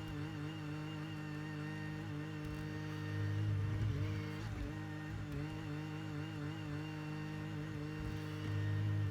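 Bobcat E42 mini excavator's diesel engine running steadily while the machine works, pulling harder about three seconds in and again near the end as the hydraulics take load.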